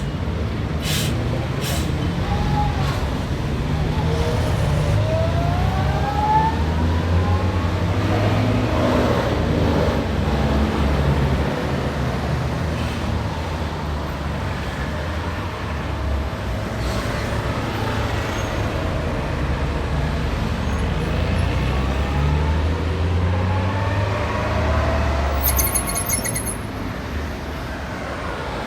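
Street traffic: cars, buses and scooters passing in a steady rumble, engines rising in pitch as vehicles pull away, twice. A few sharp clicks, and a brief rapid high rattle near the end.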